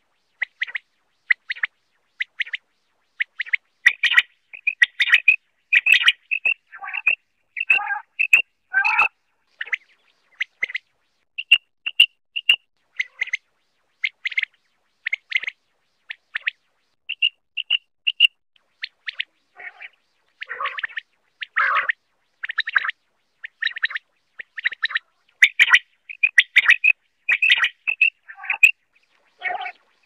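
Common quail calling over and over: short, high, clipped notes in quick groups, joined in places by lower, rougher croaking calls, in the middle and again near the end.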